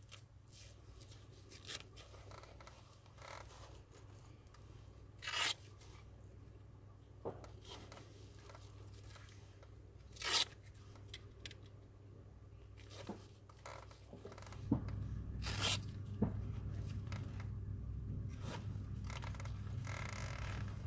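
Hook-and-loop (Velcro) straps on a leg brace being ripped open and pressed shut: a few short ripping sounds several seconds apart, with small rustles and clicks of the straps and buckles between. A steady low hum comes in about two-thirds of the way through.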